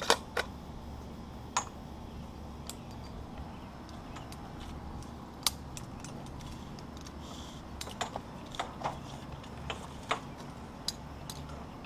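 Irregular sharp clicks and clinks of metal rigging gear, such as carabiners and hardware on an aerial lift's bucket rails, as a rope is handled. A low steady hum runs underneath. The loudest click comes right at the start, and several more cluster around eight to nine seconds in.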